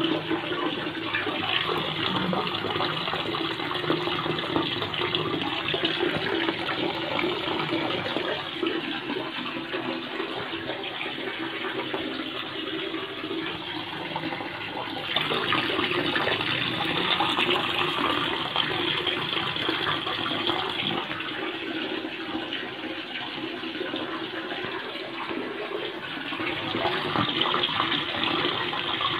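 Aquarium water circulating: a steady rush of running, splashing water, growing louder for several seconds about halfway through and again near the end.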